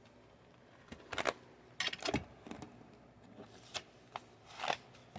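Paper rustling and crinkling in several short bursts as planner pages are handled and turned.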